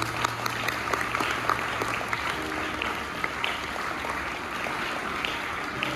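Audience applause, a dense patter of many hands clapping, with background music playing softly underneath.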